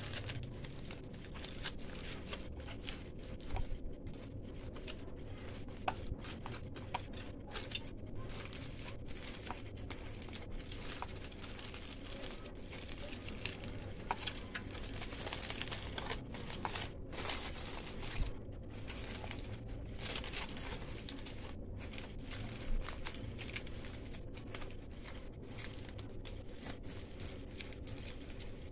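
Aluminium foil crinkling and crumpling as hands fold and press it into a packet around a whole fish, with irregular crackles throughout.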